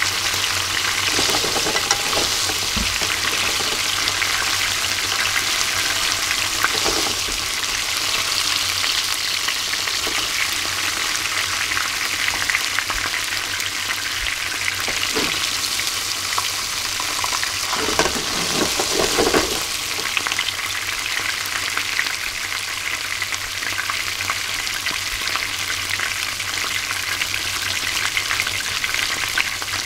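Chika (Japanese surf smelt) deep-frying in hot oil without batter, a steady sizzle and fine crackle, with a louder stretch about eighteen seconds in.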